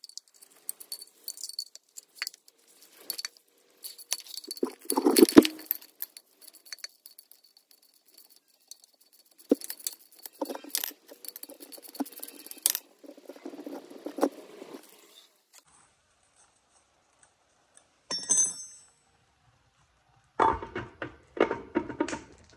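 Metal hand tools clinking, rattling and scraping against the flywheel and its bolts on a 1928 Chrysler inline-six engine. The sound comes as scattered clinks, a louder rattle about five seconds in, a longer stretch of scraping and rattling in the middle, and a cluster of knocks near the end.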